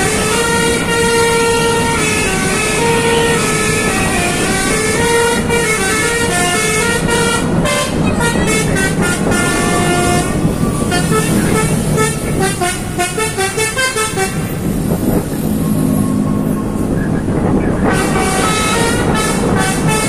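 A bus's basuri telolet musical air horn playing a koplo-style melody, its notes stepping from pitch to pitch about twice a second over a steady low rumble. About two-thirds through, the notes stutter in quick pulses, then a lower-pitched run of notes follows before the higher melody returns.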